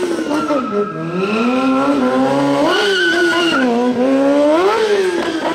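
Motorcycle engine revving up and down during stunt riding, its pitch climbing sharply about three seconds in and again near five seconds, with tyres squealing as the bike slides on the asphalt.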